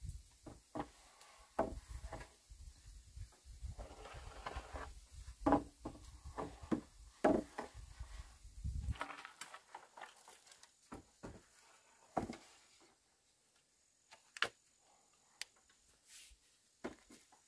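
Irregular wooden knocks and clatter of bamboo being handled and worked. The knocks come thick and fast for the first half, over a low rumble, then thin out to a few single knocks.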